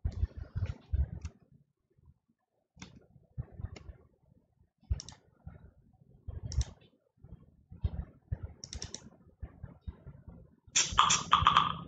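Computer keyboard keys tapped in short, irregular bursts with pauses between them, and a louder clatter of keys near the end.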